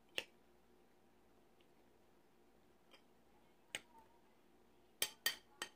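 Metal spoon clinking against a cut-glass bowl while stirring and scooping a salad: one sharp clink just after the start, another a little past the middle, then three quick clinks near the end.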